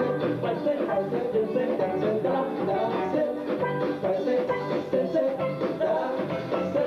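Dance music with a steady beat.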